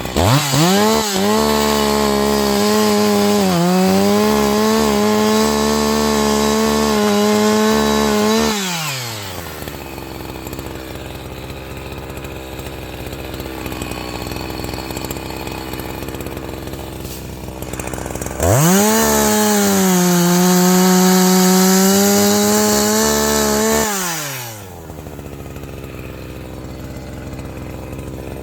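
Two-stroke chainsaw revved to full speed twice, each time for about six to eight seconds, cutting firewood, then dropping back to idle. Its pitch sags slightly while the chain is in the wood.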